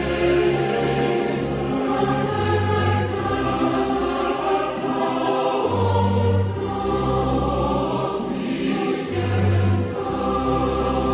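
Choral music: a choir singing held chords over a bass line that moves to a new note every second or two.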